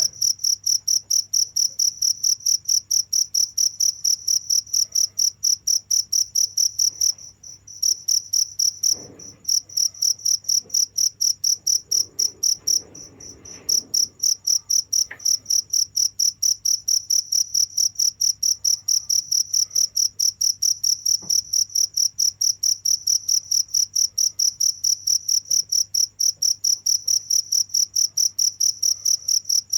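A cricket chirping in a fast, even rhythm of about four high, single-pitched chirps a second. The chirping breaks off briefly a few times about a third of the way in and near the middle.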